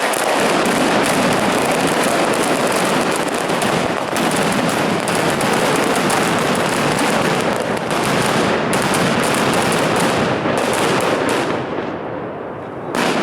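A dense, unbroken barrage of firecrackers, a continuous crackle packed with sharp bangs. It thins out and fades near the end, and one last loud bang follows.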